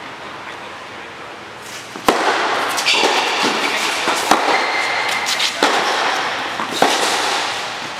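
Tennis serve and rally on an indoor court: a sharp racket strike on the ball about two seconds in, then further hits roughly every second and a quarter. Each crack echoes in the hall.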